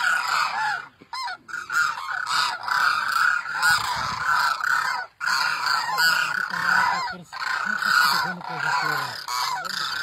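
A flock of cranes calling, many overlapping calls at once in a dense, continuous chorus, with a couple of brief breaks.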